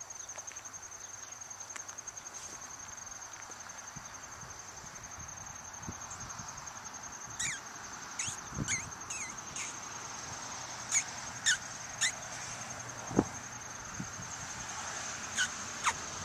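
Steady high insect trill, cricket-like, with sharp downward-sweeping bird chirps repeating from about halfway through. A single thump near the end is the loudest sound.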